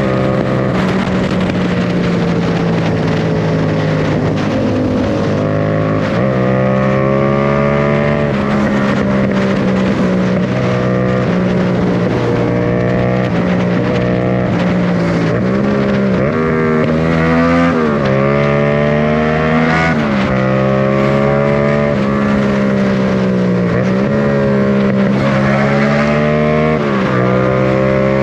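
Yamaha MT-07 parallel-twin engine running through a Mivv GP Pro carbon full exhaust system under way. Its pitch rises and falls over and over as the throttle is opened and closed.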